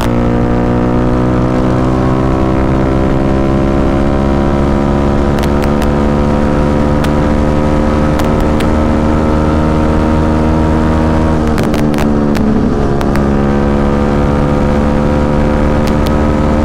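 Yamaha WR155R's single-cylinder four-stroke engine running hard at high, steady revs, around 6,000 rpm where its variable valve actuation (VVA) has switched in. The note eases slightly lower, dips and wavers briefly about twelve seconds in, then holds steady again.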